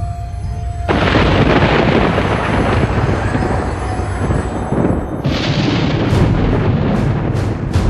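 Thunder: a sudden loud crash about a second in that rumbles on, then a second sharp crack with a hiss on top about five seconds in, rolling on.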